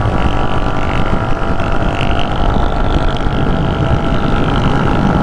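A motorcycle that is not a big bike, running steadily at highway speed, about 120 km/h, with rushing wind, heard through a helmet-mounted microphone.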